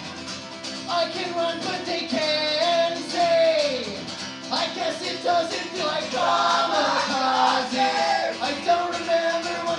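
Live acoustic set: a man singing into a microphone while playing an acoustic guitar.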